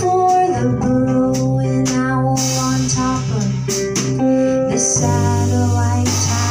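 Live band music: a woman singing over strummed hollow-body archtop guitar, with drums, ringing cymbals and a low held bass line.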